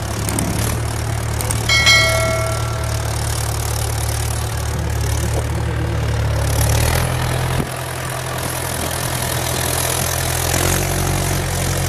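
Mahindra 575 DI tractor's four-cylinder diesel engine running steadily under load while pulling a heavily loaded trolley, its note changing about seven seconds in. A short bell-like chime rings about two seconds in.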